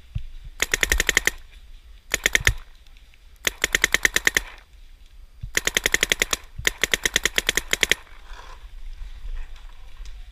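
Paintball marker firing in five rapid strings of shots, many shots a second, each string lasting from under half a second to over a second.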